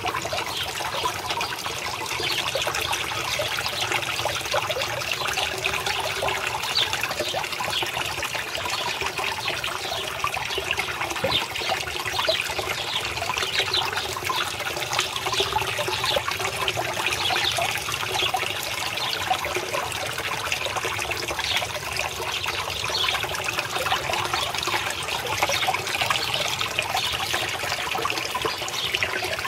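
Water from a small spout pouring into a fish pond, a steady trickling splash.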